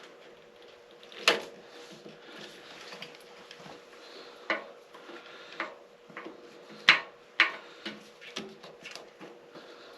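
Metal hand tool clinking and scraping against a screw-on part of a Harley-Davidson Heritage Springer front end as it is turned to work the part loose, with a few sharp clinks, the loudest about a second in and about seven seconds in.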